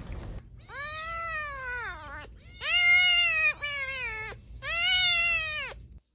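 A young kitten mewing: four drawn-out, arching mews, the first the longest and falling away at its end. The sound cuts off abruptly just before the end.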